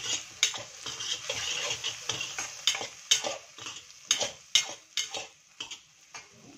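Steel spatula scraping and knocking against a nonstick kadai as onions, tomato and spices are stirred and fried in hot oil, with a steady light sizzle underneath. The strokes come quickly and irregularly, then thin out and quieten near the end.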